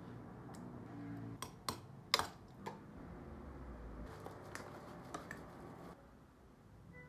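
A metal spoon clinking and tapping against a ceramic bowl and a jar while yogurt and honey are spooned out: a handful of sharp clicks, the loudest about two seconds in, over a low steady hum.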